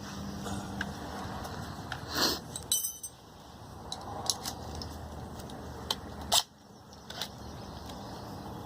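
A few light metallic clinks and knocks from tools being handled, loudest about two seconds in, near three seconds and past six seconds, over a steady low hum.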